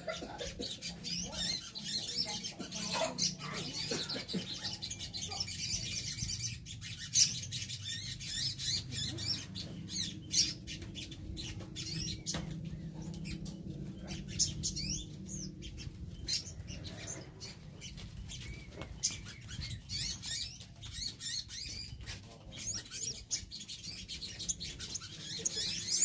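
A group of caged olive-backed sunbirds (sogon) giving thin, high chirps and twitters back and forth, mixed with quick clicks and wing flutters as they hop around their cages. A faint low hum runs underneath.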